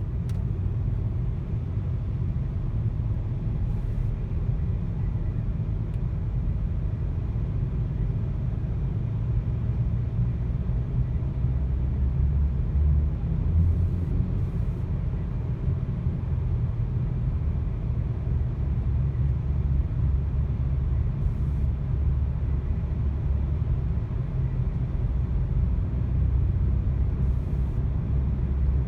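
Volkswagen car engine running with a misfire while driving, heard as a steady low rumble with small uneven swells.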